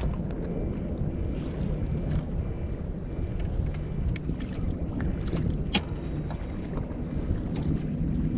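Wind buffeting the microphone over open sea around a kayak, with a steady low rumble and a few light clicks scattered through it.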